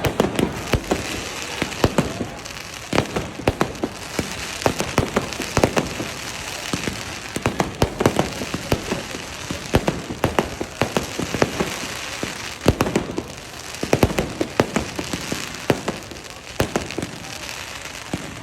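Fireworks display: a steady run of sharp bangs from bursting shells, several a second at irregular spacing, over a continuous crackling hiss.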